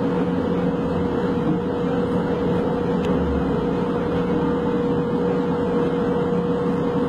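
Metro train running, heard from inside the passenger car: steady rumbling running noise with a constant mid-pitched hum.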